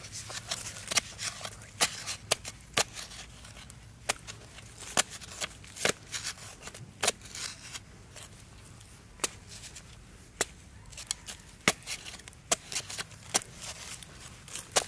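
A digging tool's blade jabbing and scraping into dry, crumbly soil in short, sharp, irregular strokes, roughly one every half second to a second, as a spider's burrow is dug out.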